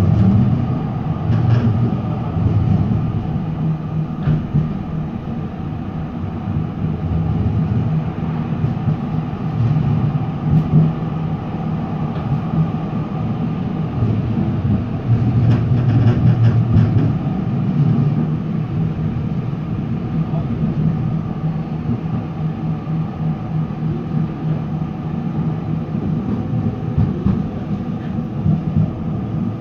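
Interior running noise of a TW6000 Stadtbahn light-rail car in motion: a steady rumble of wheels on rails with a low hum, broken by a few faint clicks.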